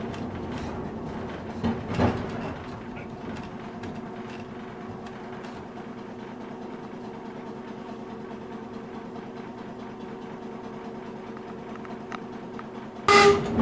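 Electric streetcar heard from its front platform: a steady electric hum with a few light clicks. Near the end a loud pitched warning signal from the car cuts in suddenly.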